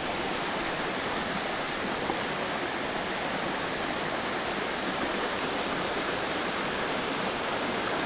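Steady rush of water tumbling over rocks in a mountain stream, with a waterfall upstream.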